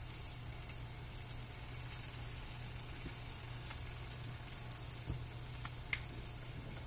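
Pork steak frying in a pan on an electric stove: a steady soft sizzle with scattered small crackles, over a low steady hum.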